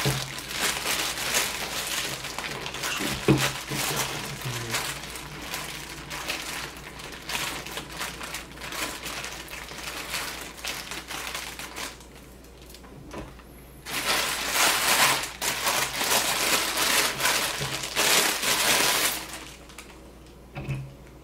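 Clear plastic bag crinkling and rustling as it is pulled off a small refractor telescope, in two long stretches with a short pause about twelve seconds in.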